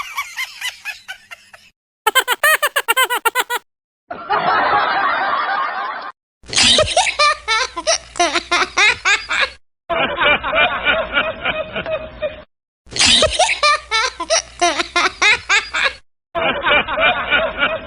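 A run of separate laughter sound-effect clips, each lasting a couple of seconds, with short silent gaps between them: rapid bursts of giggling and snickering laughs, some clips repeated.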